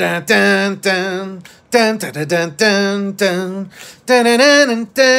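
A man's voice in a drawn-out, sing-song delivery: a string of held syllables, about half a second each, with short breaks between them.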